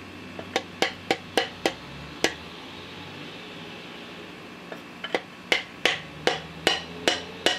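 Piston being tapped down through a ring compressor into a Chevy 350 cylinder bore: two runs of light, sharp hammer taps, about two or three a second, with a pause between them.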